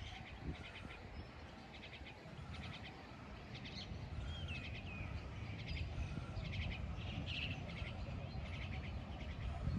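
Small birds chirping in quick repeated trills, with one short falling whistle about halfway through, over a steady low rumble.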